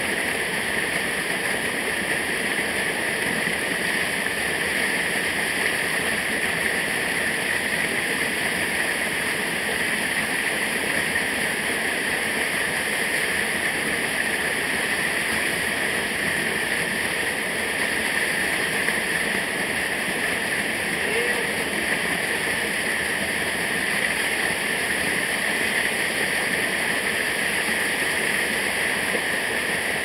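Small waterfall cascading over rocks in a mountain stream: a steady, unbroken rush of water.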